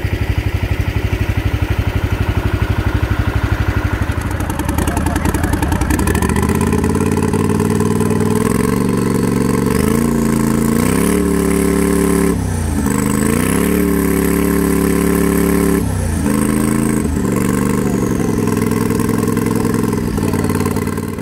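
Turbocharged engine in a modified Wheel Horse garden tractor being revved up and down several times, its pitch rising and falling with two sharp drops midway. A thin high whistle climbs and falls along with the revs, the sound of the turbo spooling.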